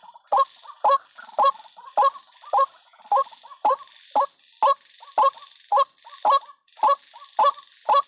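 White-breasted waterhen call, as used to lure waterhens: a short harsh note repeated evenly about twice a second. A steady high-pitched drone runs behind it.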